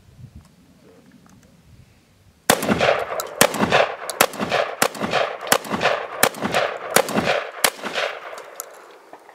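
Shotgun firing #7½ birdshot in a rapid string of about eight shots, roughly one every three-quarters of a second, starting about two and a half seconds in, each shot trailing off into an echo.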